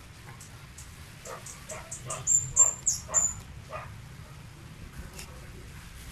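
A dog barking repeatedly, about seven short barks between one and four seconds in, with a few high chirps among the loudest of them.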